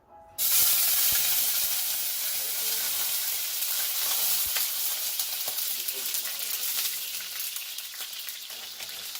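Food frying in hot oil in a pan, a dense crackling sizzle that starts abruptly about half a second in and eases slightly toward the end.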